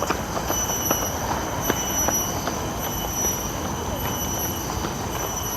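Outdoor ambience: a steady high-pitched drone that pulses and breaks, over a rumbling noise background, with a few faint clicks.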